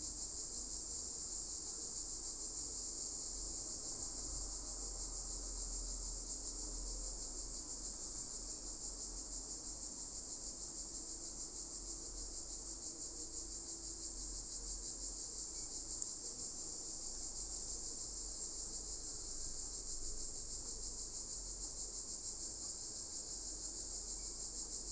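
Steady high-pitched chirring of insects, with a faint low hum underneath.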